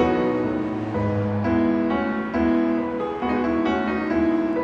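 Background music with a piano playing a gentle melody of held notes.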